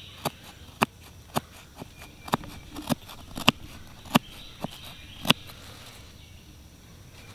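Multi-tool knife blade cutting a notch into a wooden hand-drill fireboard: about ten sharp clicks of the blade biting into the wood, roughly two a second, stopping after about five seconds. It is the pie-shaped notch being carved out to the burnt-in spindle hole.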